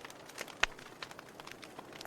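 Wood fire burning in a fireplace: a soft steady hiss with irregular sharp crackles and pops, the loudest pop just over half a second in.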